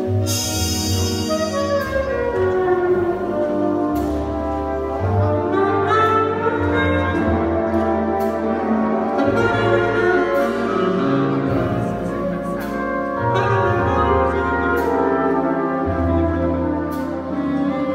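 Jazz big band playing a full-ensemble passage. The brass and saxophone sections hold sustained chords over changing bass notes, with a cymbal crash at the start and drum strikes underneath.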